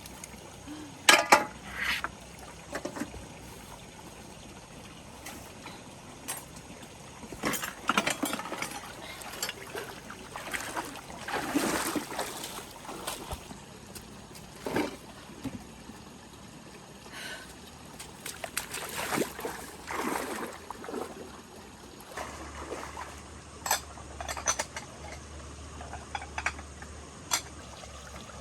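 Water splashing and trickling in irregular bursts, with a few sharp knocks; the loudest knock comes about a second in.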